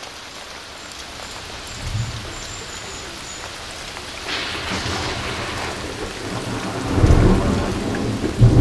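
Rainstorm: rain falling steadily, growing heavier about four seconds in, with rolls of thunder rumbling about two seconds in and again near the end, the loudest around seven seconds.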